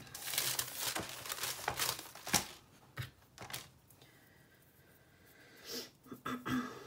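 A sheet of wax paper crinkling and rustling as it is handled and laid flat, densest in the first two and a half seconds, with one sharp tap about two and a half seconds in and a few soft rustles after.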